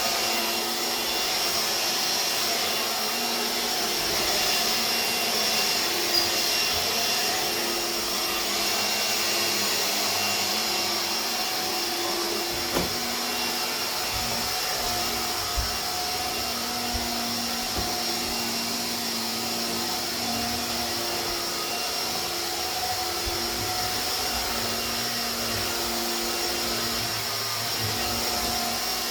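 Hoover Air Cordless BH50121 cordless vacuum cleaner running steadily, a constant rushing hum with a high whine, and a few faint clicks along the way.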